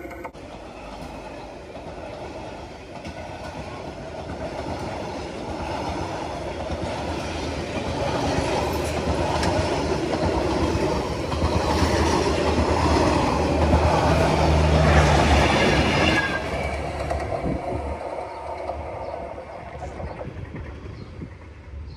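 Passenger train coaches rolling past close by, the wheels rumbling and clattering on the rails. The sound builds, is loudest about three-quarters of the way through, then fades as the train draws away.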